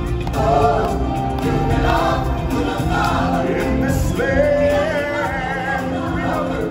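Stage-show music: several voices singing together over an instrumental backing. About four seconds in, one voice holds a long wavering note.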